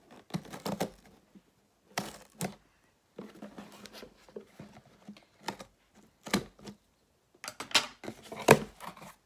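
A small cardboard shipping box being cut and torn open by hand: irregular tearing, scraping and crinkling bursts with sharp clicks and short quiet gaps between them.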